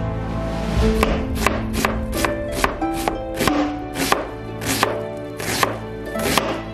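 Kitchen knife chopping on a cutting board, a steady run of sharp strokes about two to three a second, over background music.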